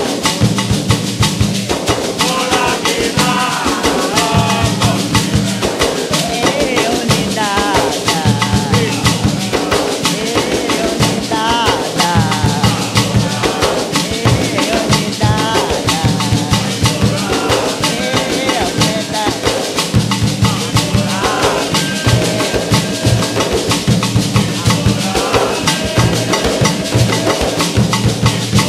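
Afro-Brazilian Nagô/Xambá ritual music: drums and shakers play a fast, steady rhythm while voices sing a chant over them.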